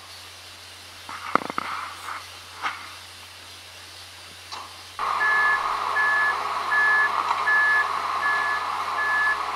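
Fecon tracked mulcher backing up. About five seconds in its engine comes up and the reversing alarm starts beeping steadily, about seven short beeps.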